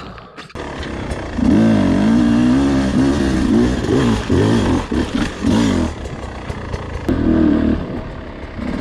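Beta 250 two-stroke enduro motorcycle engine being ridden hard, revving up and down again and again as the throttle is opened and closed. It picks up about a second in, eases off around six seconds, then revs again.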